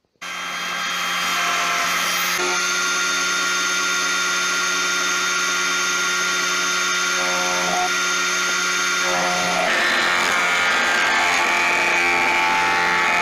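Multifunction woodworking machine (circular saw with a jointer-planer) running with a steady motor hum. About ten seconds in, a wooden board is fed over the planer bed, adding a louder, rougher cutting sound.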